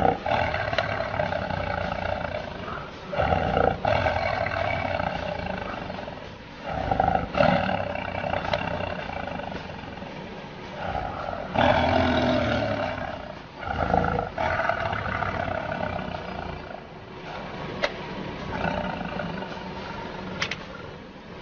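Big cats roaring and snarling in a series of long, rough calls with short breaks between them, the sound of a fight between big cats.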